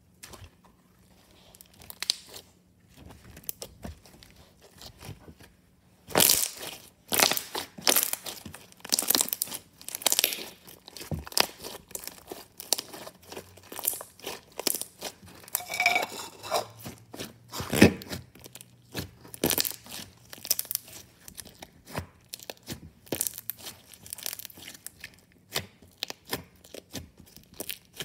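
Glittery slime being poked, stretched and squeezed by hand, giving a dense run of sticky crackles and pops. The crackling is faint at first and turns loud and continuous from about six seconds in.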